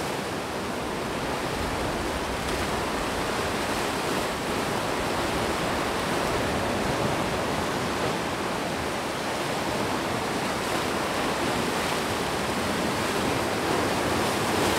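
Sea surf surging and breaking against rocky cliffs and boulders, a steady rush of churning water.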